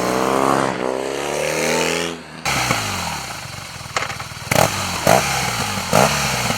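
BMW R 1200 GS air-cooled boxer twin revving: the pitch climbs for about two seconds, then it cuts to lower running with a few sharp cracks.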